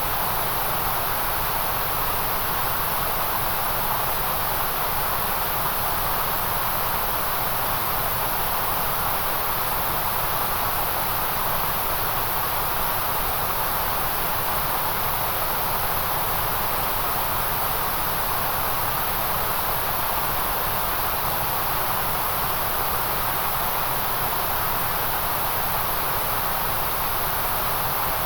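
Steady white noise: an even, unchanging hiss, brightest at the very top of the range with a second broad band in the middle.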